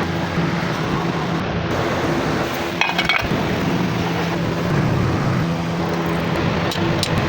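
Motorcycle engine running steadily at idle, with a metallic clinking in its sound.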